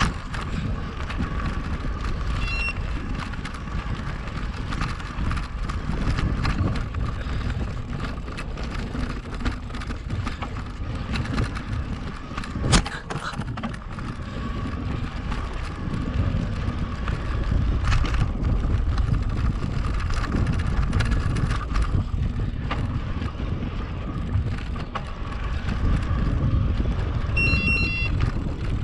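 Riding noise from an electric mountain bike: wind rumbling on the microphone over tyre noise, under a steady high whine. A short electronic beep sounds about three seconds in and again near the end, and there is a single sharp knock about thirteen seconds in.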